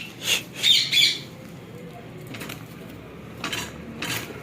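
Parrots squawking during the first second, then a few sharp metallic clinks from the cage, about one every second.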